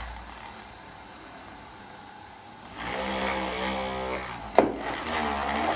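Homemade drill with a 775 DC motor in a PVC-pipe body drilling into a wooden board: quiet at first, then the motor starts about three seconds in and runs with a steady whine as the bit bores into the wood. A sharp knock comes a little over a second later, and the drill keeps running.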